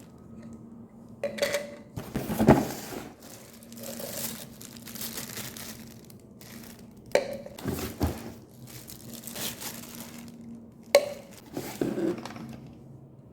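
Plastic packaging crinkling and rustling as blender parts are unpacked, with a handful of sharp knocks of hard plastic cups and parts being handled and set down.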